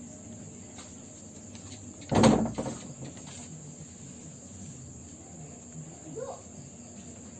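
Crickets chirping steadily in the background, with one loud metal clunk about two seconds in as the wok of frogs is handled and shaken on the table.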